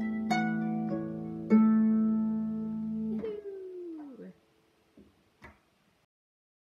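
Lever harp (Irish harp) playing the last plucked notes of a reel: two chords that ring on and are damped by the hands about three seconds in. A short sound falling in pitch follows, then two faint knocks.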